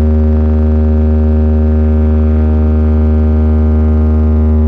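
Large stacked speaker system putting out a loud, perfectly steady low hum, a deep bass tone with a buzz of overtones above it, held unchanged.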